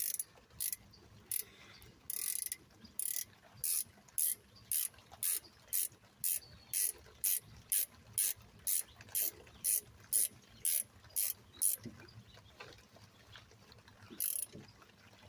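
Hand ratchet and socket tightening the upper rear brake caliper bolt: rapid clicking on each back-swing, about two strokes a second. The clicking stops about twelve seconds in, and one more stroke comes near the end.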